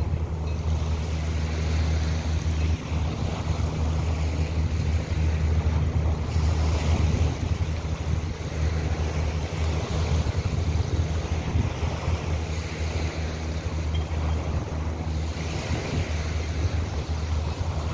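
Wind buffeting the microphone in a steady low rumble, over the wash of the sea along the shore.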